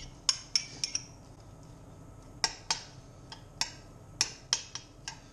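A metal fork clinking and tapping against a non-stick frying pan in a dozen or so sharp, irregular clicks as diced bacon is spread out in it. The pan is not yet hot, so there is no sizzling.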